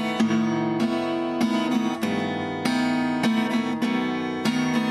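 Acoustic guitar strumming chords in a steady rhythm, an instrumental passage between sung lines of a bard song.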